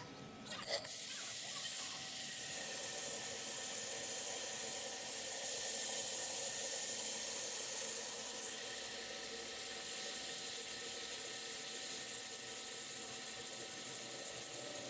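CNC pipe-drilling machine running: a steady hiss with a few faint steady whining tones, setting in about a second in.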